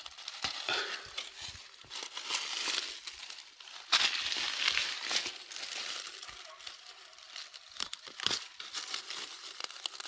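Irregular crackling and rustling of dry leaves and forest undergrowth, with many small clicks and a sharper crunch about four seconds in.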